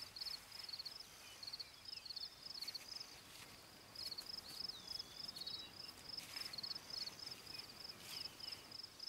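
Insects chirping faintly in a steady rhythm of high, pulsed chirps, about two to three a second, with a short gliding whistle about five seconds in.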